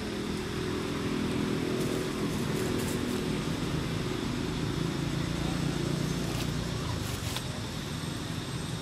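A motor engine running steadily, its low hum growing a little louder through the middle and easing off near the end, with a few faint clicks over it.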